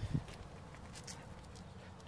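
A big white dog's paws moving about on a pebbled driveway: faint scuffs and a few light clicks, with a soft thump just after the start.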